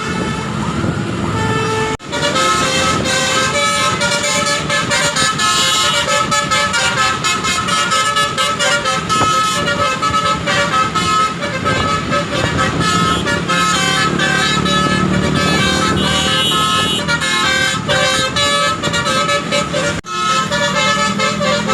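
Basuri telolet horn on a tour bus playing a running multi-note melody, its tones stepping from note to note without pause. It breaks off sharply twice, about two seconds in and near the end.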